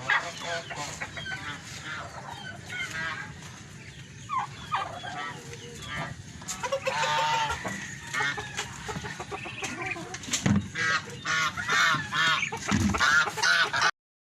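A crowded poultry yard calling, with many overlapping clucks and squawks from a mixed flock; the sound cuts off abruptly near the end.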